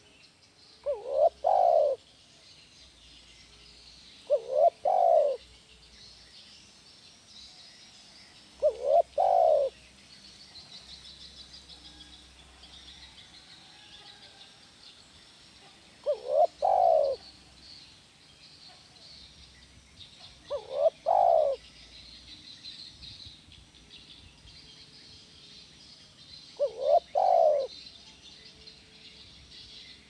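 Spotted dove cooing: six short phrases of two or three notes each, spaced several seconds apart, over a steady faint high chirring in the background.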